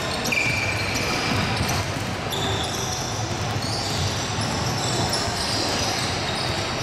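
Basketball being dribbled and bouncing on a wooden gym floor during play, with players' voices echoing in the large hall.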